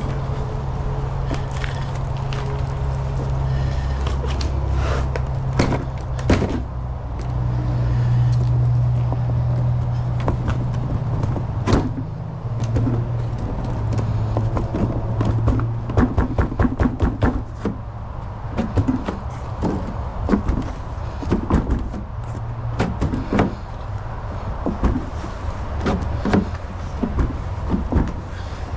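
Knocks, taps and scrapes as an ABS plastic mold is worked loose from a cured concrete fountain topper and the pipe is pulled out of it, with a run of quick knocks about 16 seconds in. A steady low hum runs underneath.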